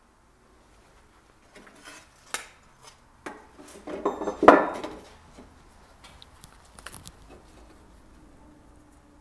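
Light metallic clinks and scrapes of a steel bolster chisel against a steel helmet ocular plate and the wooden workbench, loudest about four and a half seconds in, followed by a few faint ticks.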